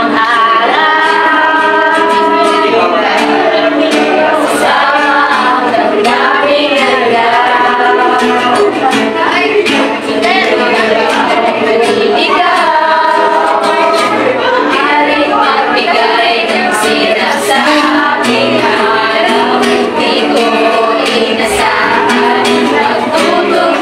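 A group of young, mostly female voices singing a song together, accompanied by a strummed acoustic guitar.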